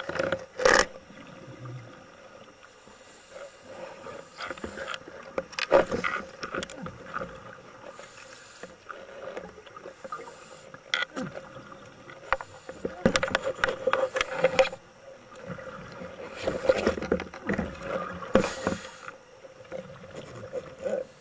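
Underwater camera audio: a scuba diver's exhaled bubbles rushing in irregular bursts, with a few sharp knocks and a faint steady hum underneath.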